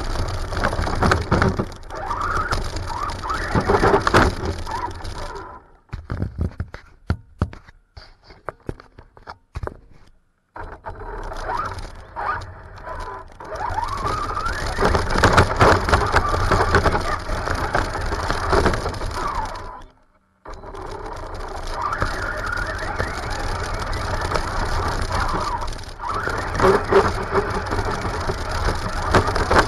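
Traxxas Slash RC truck's electric motor and drivetrain whining up and down in pitch as it speeds and slows over grass, with grass scraping under the chassis. A few seconds in it drops to scattered clicks for a while, and it cuts out briefly later on.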